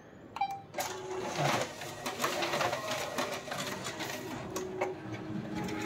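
Canon imageRUNNER ADVANCE 4545i copier starting a copy job. A short key beep sounds as Start is pressed, then about a second in the automatic document feeder begins pulling the originals through, with rapid clicking over a steady motor hum.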